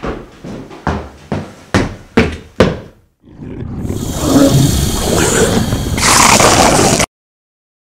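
Heavy banging on a door, about seven hard blows at roughly two and a half a second, then a loud rising roar of noise that swells for about four seconds and cuts off suddenly.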